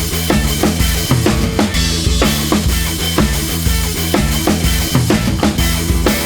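Background music: a drum-kit-driven track with a steady beat, bass drum and snare hits over a bass line.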